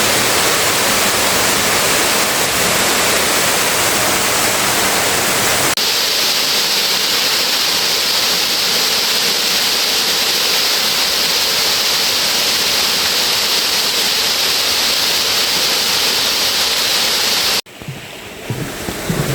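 Waterfall: a steady, loud rush of falling water. It turns hissier about six seconds in and cuts off abruptly near the end.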